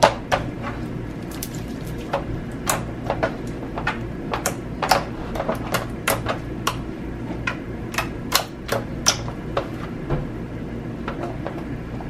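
Runny, glue-like green slime being squished and kneaded by hand, giving off irregular sharp wet clicks and pops, a few each second.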